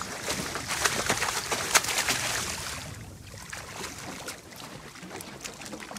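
Water splashing and sharp clicks as a hooked grey mackerel is reeled up to the side of a boat and thrashes at the surface; the commotion eases off after about three seconds into a steadier wash of water.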